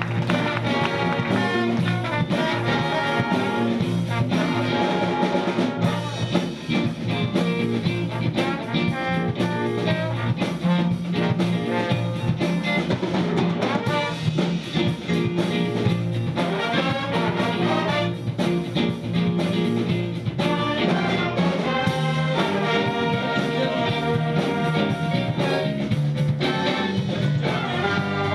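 A big band plays a jazz tune live. Saxophones, trumpets and trombones carry the melody over electric bass and drum kit.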